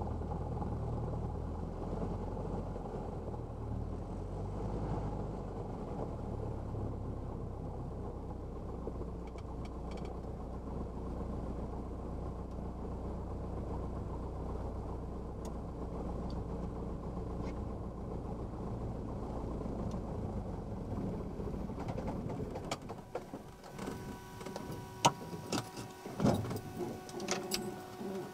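A 1978 Cessna 172's four-cylinder Lycoming engine idling, heard from inside the cabin, then shut down about 23 seconds in. After the engine stops come scattered clicks and knocks and faint steady tones as the aircraft is shut down.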